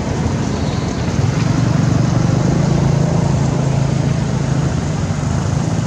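An engine running off-screen with a steady low hum, growing louder about a second in and easing back near the end.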